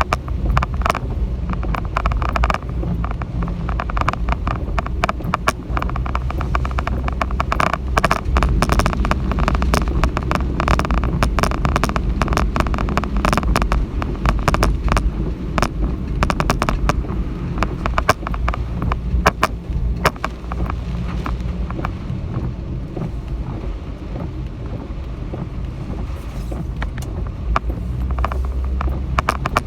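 Typhoon winds buffeting the microphone in a steady low rumble, with a dense clatter of sharp taps and rattles that thins out about two-thirds of the way through.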